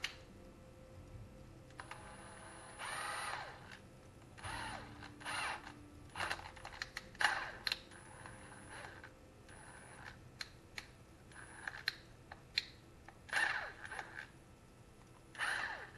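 Cordless impact driver running in a dozen or so short trigger bursts, a whirring motor with a high whine that spins up and down, as it runs the small screws down on a Stihl MS-180C chainsaw's diaphragm carburetor.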